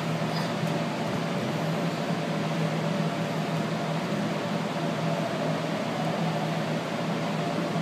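Steady whirring hum of electric air blowers that keep inflatable bounce houses and slides inflated, with a constant low drone under an even rush of air.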